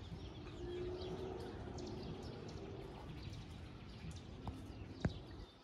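Faint, even background noise with scattered light ticks, and one sharp click near the end.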